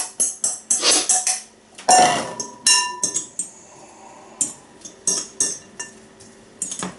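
Metal knocking and clinking against a ceramic mixing bowl: a stainless steel bowl tapped on the rim to tip out diced onion, one strike near three seconds in ringing on briefly. From about four and a half seconds a fork clinks and scrapes against the bowl in quick taps, mixing the onion into grated potato.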